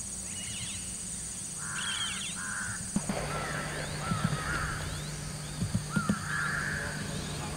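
Wild outdoor ambience: harsh bird calls, cawing among them, come and go over a steady high-pitched insect drone. A few short sharp knocks fall around the middle.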